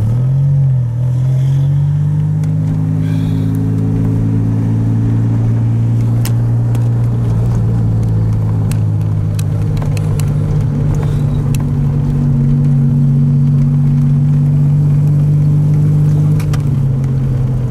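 1981 DeLorean DMC-12's Stage-2 PRV V6 engine, heard from inside the cabin, pulling the car down the street at a steady engine speed. It dips and rises briefly in pitch about a second in and eases off slightly near the end.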